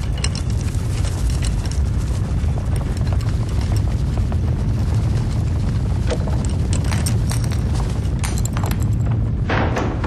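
Plaster walls cracking and crumbling: a deep steady rumble under dense crackling and small ticks, with a louder burst of crackling near the end.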